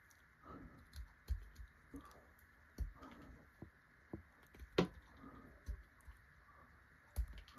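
X-Acto hobby knife shaving wood off a hexagonal drawing pencil: a dozen or so short, irregular scraping clicks as each sliver is cut, with one louder stroke near the middle.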